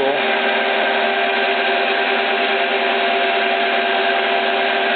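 Stanko 6T10 vertical milling machine running steadily, its end mill cutting into steel plate, with a constant whine of several steady pitches over a dense noise; the spindle is run at 560 RPM.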